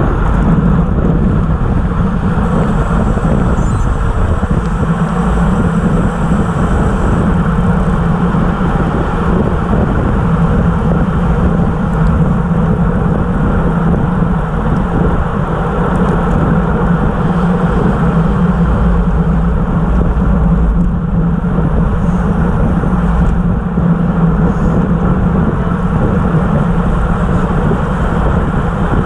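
Steady rush of wind over the microphone together with the hum of tyres and drivetrain of a road bike riding in a racing pack at about 25 to 29 mph.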